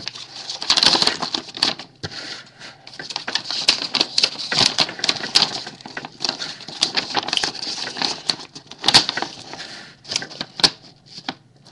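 Paper and plastic packaging being handled: an irregular crinkling and rustling with many small sharp clicks, as a folded note and card packaging are unfolded and moved about.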